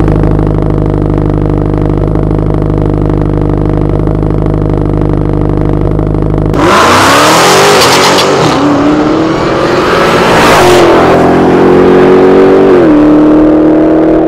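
2018 Dodge Challenger SRT Demon's supercharged 6.2-litre Hemi V8 idling steadily, then launching hard about six and a half seconds in and revving up through the gears, the pitch dropping back at two upshifts.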